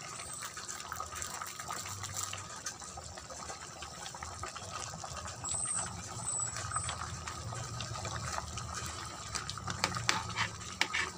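Chicken pieces bubbling in their own watery juices in a pan, a steady simmer, with a spatula scraping and knocking against the pan near the end.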